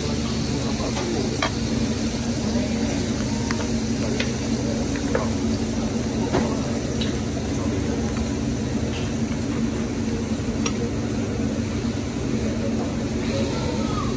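Steady restaurant dining-room noise with a constant low hum, and now and then a light clink of forks on plates.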